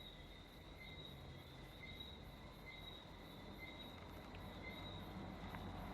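Faint background noise: a soft high chirp repeating about once a second over a low hum, the hum growing louder near the end.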